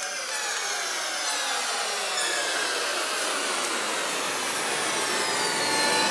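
Swept electronic noise effect opening a live band's song: a steady hiss with many pitch lines sliding downward, bending back up near the end.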